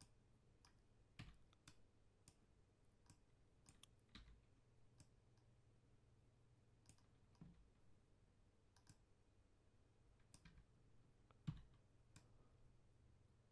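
Faint computer mouse clicks, irregularly spaced, over near-silent room tone, with one slightly louder click near the end.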